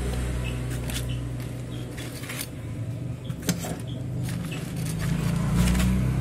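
Steady low rumble with scattered light clicks and scrapes as steel tongs handle pieces of fried tempe on a metal rack.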